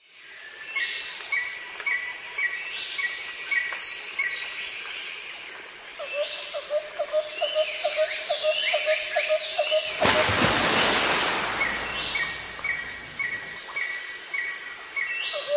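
Several birds singing and calling together, with runs of quick repeated chirps and whistled sweeps, and a fast pulsing call joining about six seconds in. About ten seconds in, a loud rush of noise covers them for a couple of seconds.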